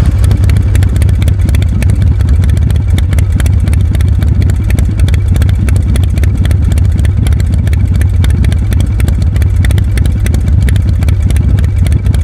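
A motorcycle engine running loudly at a steady speed, with a rapid, even clatter and no revving up or down.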